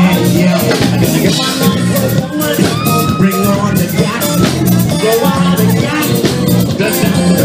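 Live band playing a steady, loud dance groove on drum kit, bass guitar, electric guitar and keyboard, with the lead singer's voice over it through the PA.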